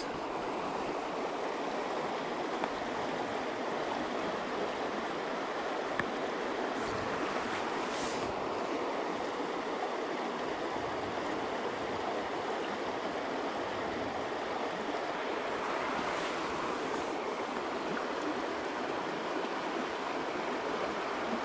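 Shallow, rocky stream running over stones close by: a steady, even rush of water.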